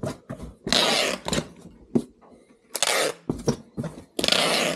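Handheld tape gun pulling clear packing tape off the roll across a cardboard box: three loud ripping screeches, each about half a second long, with short clicks and knocks between them.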